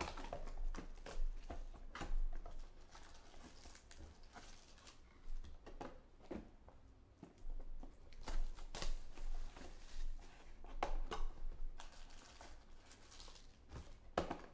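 Plastic wrapping crinkling and tearing as a sealed cardboard trading-card box is unwrapped, then the box lid is opened and the foil card packs are handled. The sound is irregular crackles, rustles and sharp taps.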